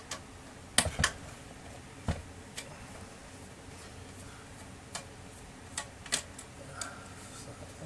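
Irregular sharp clicks and taps of hands and tools working on the plastic and metal parts of a disassembled laser printer, the loudest two close together about a second in.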